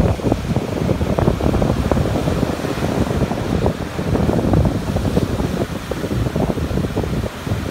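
Ocean surf breaking and washing up over a sandy beach in a steady noisy rush, with wind buffeting the microphone in a low rumble.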